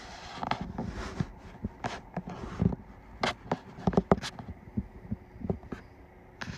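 Rustling and irregular sharp clicks and knocks close to the microphone: handling noise as the phone is held among kittens scrambling over a bedspread.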